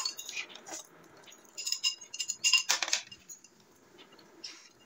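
Spoons clinking against glass bowls while noodles are eaten: a quick run of light ringing clinks, mostly between about one and a half and three seconds in.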